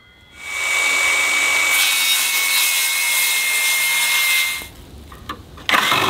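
Cordless oscillating multi-tool cutting into wood, giving a steady, high-pitched buzz. It stops about four and a half seconds in and starts cutting again near the end.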